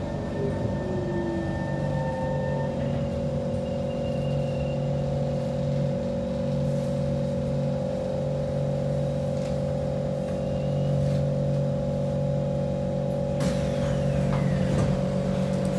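Kawasaki C151 MRT train heard from inside while running, with a steady layered hum from its motors and equipment over the running noise. Near the end the noise grows and a whine falls in pitch.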